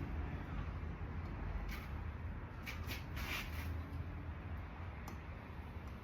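Faint handling sounds: a few short scrapes and clicks, clustered about halfway through with one more near the end, over a steady low hum.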